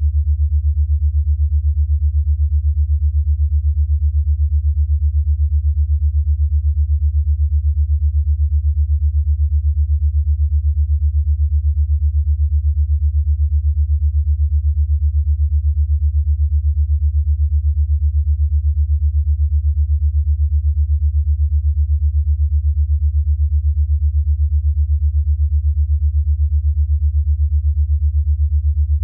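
Deep, steady synthesized sine tone that pulses rapidly and evenly in loudness: an 8 Hz alpha-wave brainwave-entrainment beat.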